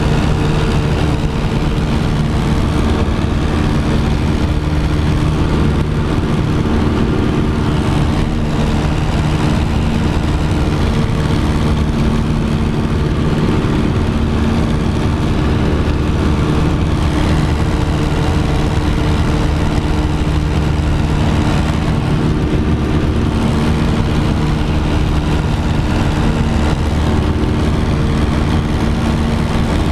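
Piper J-3 Cub's engine and propeller running steadily in cruise flight, heard from inside the open cockpit with a rush of air over it.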